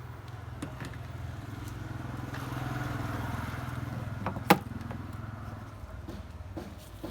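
A motor vehicle's engine hum that swells to a peak about three seconds in and then fades, with one sharp click about four and a half seconds in.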